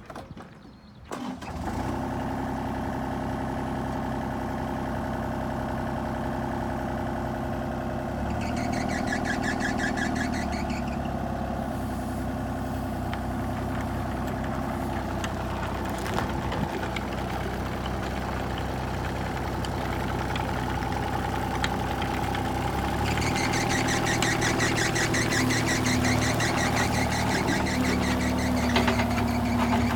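Kubota U35 compact excavator's diesel engine starts about a second and a half in and then runs steadily. It gets louder with an added high rasping sound around a third of the way in and again from about three-quarters on, as the machine is worked.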